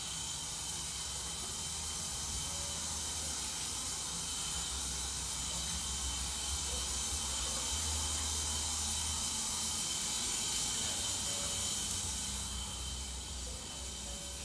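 Steady hiss of room background noise with a faint constant high tone and a low hum.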